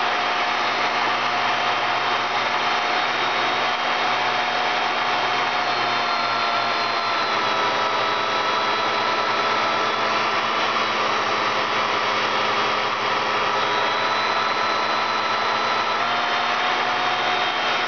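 Alternator bench tester's motor belt-driving a GM CS130 200-amp alternator at about 2000 rpm under a heavy electrical load of about 225 amps: a steady mechanical whirr with several high whining tones over it, which shift slightly in pitch about six seconds in and again near the end.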